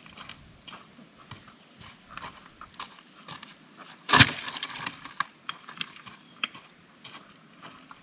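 Dry firewood branches cracking and snapping: one loud snap about four seconds in, with scattered lighter cracks and crackles around it.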